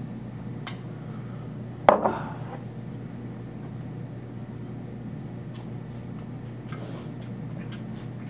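Tableware clatter at a meal: one sharp knock about two seconds in, like a dish or mug set down hard on the table, with a short ring, and a few lighter clicks before and after, over a steady low hum.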